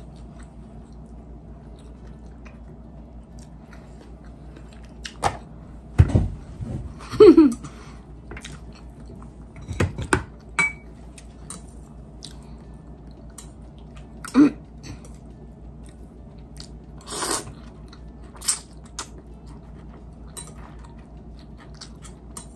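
Close-up eating of noodles: chewing and mouth sounds, with several short, louder slurps and clicks scattered through.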